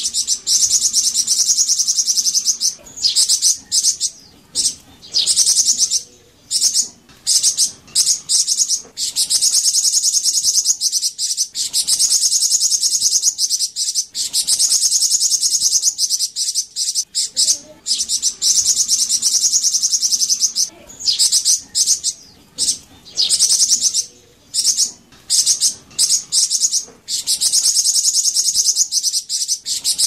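Golden-headed cisticola (burung flamboyan) singing: very high, dense buzzy trills in repeated bouts of one to several seconds, with short breaks between them.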